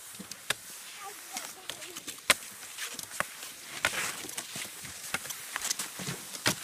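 Cross-country skis sliding and scraping over snow, with scattered sharp clicks and knocks of ski poles planting and skis striking. The loudest click comes a little over two seconds in.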